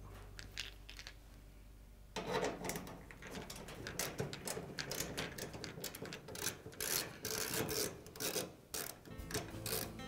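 Irregular clicking and scraping of metal and plastic as the push-on wire connectors are worked off the door switch inside an Amana dryer's cabinet. It starts about two seconds in.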